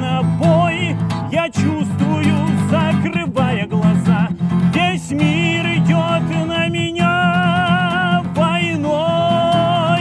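Acoustic guitar strummed steadily while a man sings a wordless melody with long held, wavering notes.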